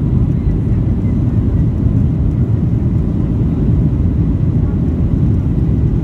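Steady low rumble of a Boeing 737-800's CFM56 turbofan engines and rushing air, heard inside the passenger cabin during the climb after takeoff.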